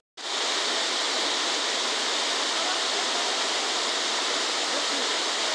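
Steady rushing of a waterfall, several streams pouring over a low rock ledge into a pool. The sound cuts out for a moment at the very start.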